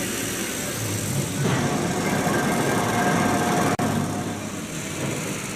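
Steady mechanical running noise from heavy rail machinery, growing louder about a second and a half in, with a brief dropout about four seconds in.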